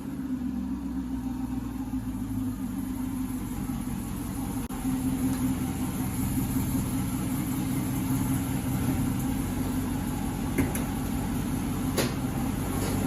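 Car engine idling steadily, with two faint clicks near the end.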